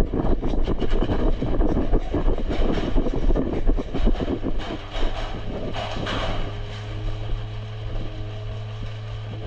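An airsoft player's running footsteps on dirt and gravel, with gear and the worn camera jostling in quick irregular knocks. About halfway through the movement eases off and a steady low hum is left.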